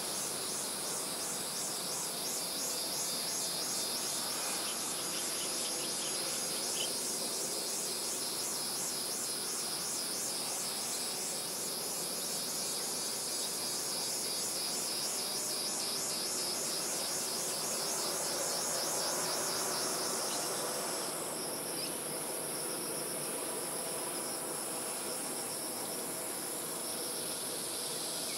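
Insects chirring: a steady high-pitched buzz with a fast, even pulsing trill that stops about 21 seconds in, over a soft background hush that swells slightly around 19 seconds.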